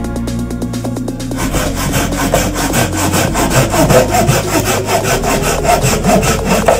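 Hand saw cutting through a branch of wood with repeated back-and-forth strokes, starting about a second and a half in. Electronic background music plays underneath.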